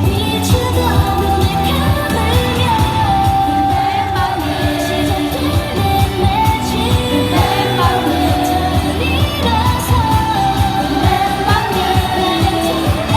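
Girl group's female voices singing a K-pop song over its pop backing track with a steady beat.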